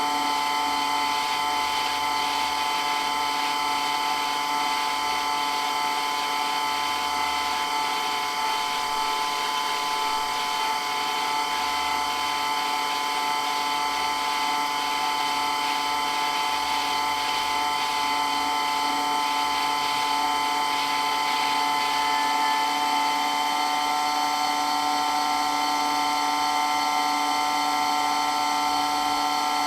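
Water pump for a pressure washer running steadily, with a constant high-pitched whine made of several steady tones.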